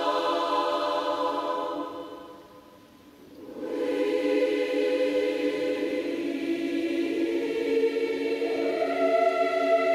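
Massed choir singing long held chords; the singing dies away about two seconds in, and after a short gap the choir comes in again on a new sustained chord that swells near the end.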